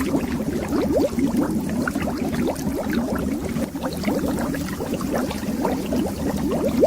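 Bubbles rising underwater: a dense, steady stream of short bubbling blips, many of them gliding quickly upward in pitch, over a low watery hiss.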